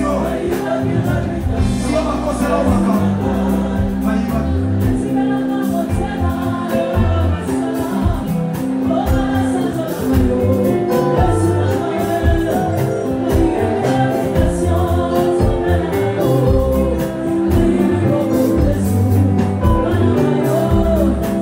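Live gospel worship song: a woman sings lead into a microphone, with other singers and a band with bass and drums behind her.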